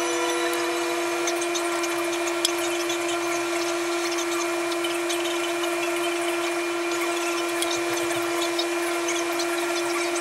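A steady electrical hum at one fixed pitch, with faint scattered ticks and rustles of wire being handled with pliers.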